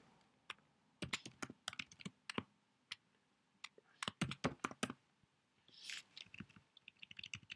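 Faint typing on a computer keyboard: three short runs of key clicks with pauses between, as a few words are typed.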